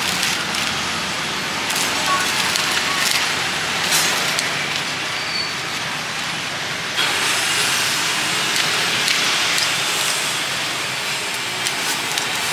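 Beef sizzling and crackling over a charcoal grill: a steady hiss with scattered sharp pops, growing a little brighter about seven seconds in.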